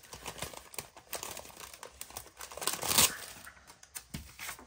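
Paper sticker sheet crinkling and rustling as a sticker is peeled off its backing, with a louder crackle about three seconds in.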